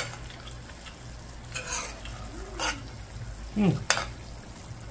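A metal spoon stirring thick, simmering curried egg bag in a large pot, scraping through the sauce and clinking against the pot's side. There is a sharp clink at the start and another just before four seconds.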